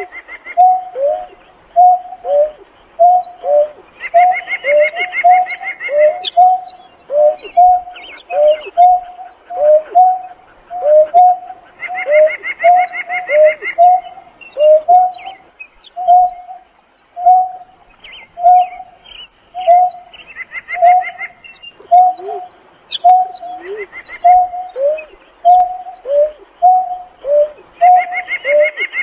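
Greater painted-snipe calling: a long, even series of low hoots, about one and a half a second, some notes sliding downward, the hooting call series typical of the female. A higher, rapid trill cuts in briefly every several seconds.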